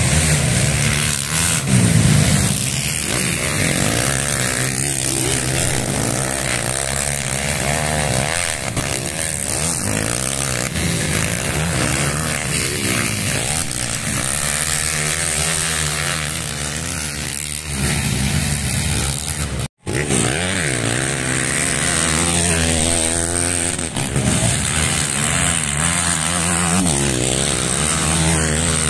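Racing motorcycle engines running at high revs, their pitch rising and falling again and again as the bikes accelerate, shift and brake. The sound cuts out for an instant about twenty seconds in.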